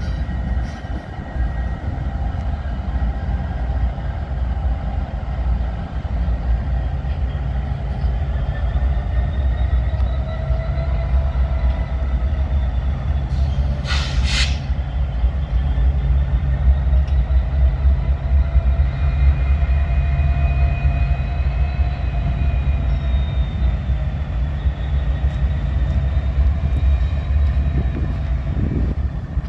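Norfolk Southern diesel freight locomotives passing, a steady low engine rumble with wheels rolling on rail and thin high tones that drift slowly up and down. A short sharp burst of noise cuts in about halfway through.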